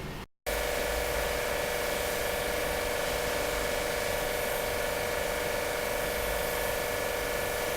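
A motor-driven machine running steadily with a constant hum-like whine over a hiss, starting abruptly just after a brief silence.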